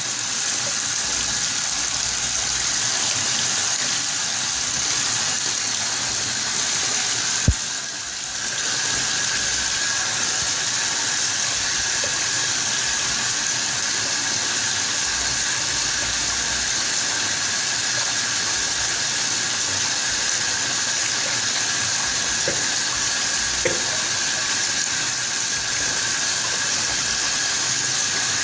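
Running water: a steady rushing hiss, with one sharp click about seven seconds in and a brief drop in level just after.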